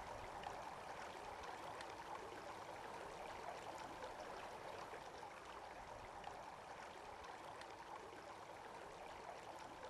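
Faint, steady rushing outdoor background noise, with no distinct events.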